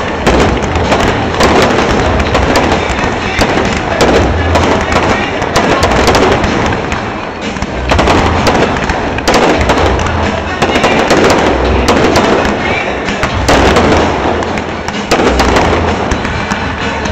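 Fireworks display: a continuous barrage of overlapping bangs and crackling from many shells at once, swelling in surges every few seconds.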